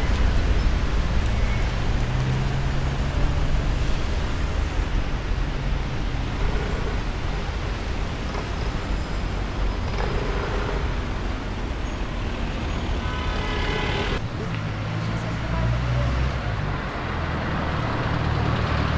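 Steady city-street traffic noise from cars driving past. About fourteen seconds in the sound changes to a nearer car engine running low and steady.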